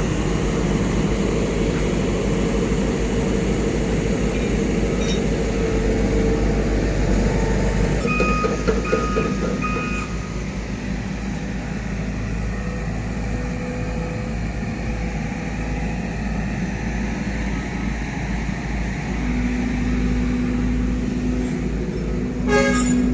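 Diesel engine of heavy construction equipment running steadily with a deep rumble. A few short high beeps come about eight seconds in, and a sharp metallic clank comes near the end.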